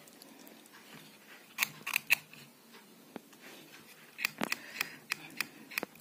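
A needle scratching carbon deposits off the small contact of a push-button switch: faint, irregular little clicks and scrapes. The carbon build-up stops the switch from making contact reliably, and the scratching cleans it.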